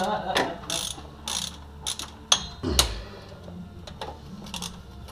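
Hand socket ratchet clicking while loosening the transmission pan bolts: a series of sharp clicks in short, irregular runs.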